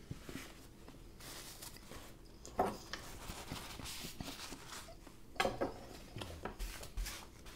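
Quiet handling of a paper napkin and a chef's knife at the table: two short rustling scrapes, about two and a half seconds in and again past five seconds, with small crackles between them.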